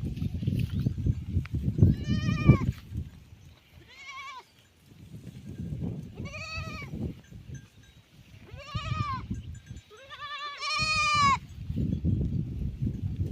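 Goats bleating, five separate calls each rising and falling in pitch, the last one longer and louder than the others, over an uneven low rumbling noise.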